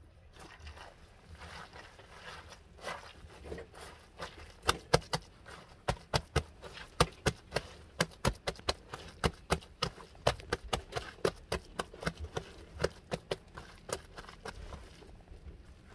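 Rubber-gloved hands digging, scraping and scooping dry soil and manure by hand: a quick run of short crunchy scrapes, about two to three a second, that starts a few seconds in.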